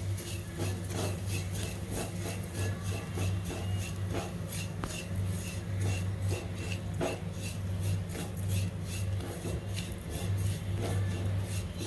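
Silicone spatula scraping and stirring dry coconut, sesame and poppy seeds around a kadhai as they roast, in repeated quick strokes, over a steady low hum.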